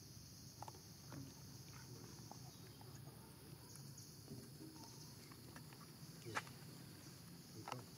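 Faint, scattered wet clicks and smacks of a baby macaque eating red dragon fruit, the sharpest about six seconds in, over a steady high insect drone.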